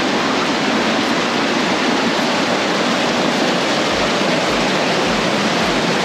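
Steady, loud rush of water in a mountain creek canyon.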